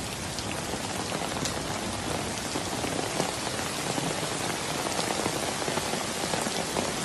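Heavy rain falling steadily onto floodwater and trees: a dense, even hiss with scattered drop ticks.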